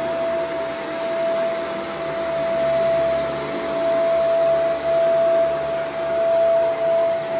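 Shark Vertex AZ2002 powered lift-away upright vacuum running on a thick carpet: a steady motor whine with one strong high tone over the rush of suction and brushroll. The level swells and dips a little as it is pushed back and forth.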